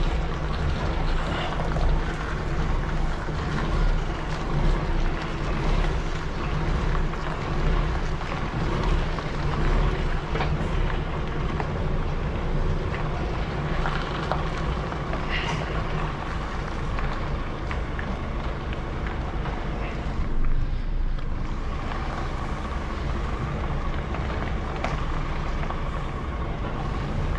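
DAF heavy recovery truck's diesel engine running steadily, a low even drone.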